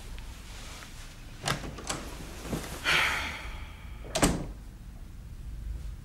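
A door being opened and shut: a couple of sharp clicks about a second and a half in, a short rushing sound around three seconds, then a sharp knock a little after four seconds in as it closes, the loudest sound.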